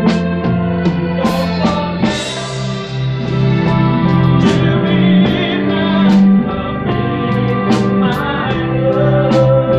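Live rock band playing: electric guitars, bass guitar and a Pearl drum kit, with steady bass notes and regular drum beats.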